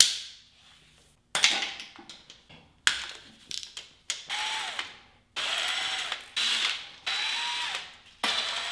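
Hand ratchet clicking as it backs out the intake manifold bolts of a Chevy 350 small-block V8, then a cordless impact driver spinning loosened bolts the rest of the way out, its motor whirring up and down in several short runs.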